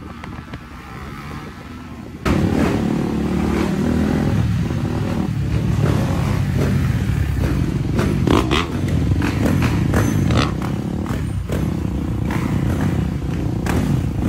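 Engines of a group of motorcycles and scooters running and revving close by as they ride together. The engine noise cuts in suddenly and loud about two seconds in, after a quieter opening.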